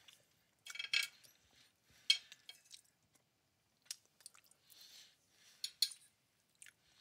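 Quiet close-up chewing and mouth sounds of a person eating, broken by a few short, sharp clicks and clinks of cutlery on a plate, the sharpest about two seconds in.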